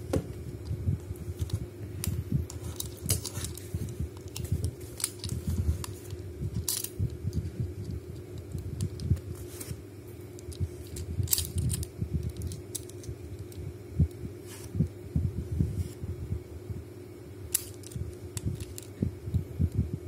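Master dial combination padlock being handled and its dial turned, giving scattered small metallic clicks and rattles amid low bumps of fingers against the lock, over a steady hum.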